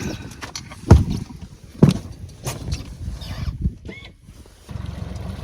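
Hollow thumps and knocks, loudest twice in the first two seconds, then about four and a half seconds in a boat motor starts and runs with a steady low hum.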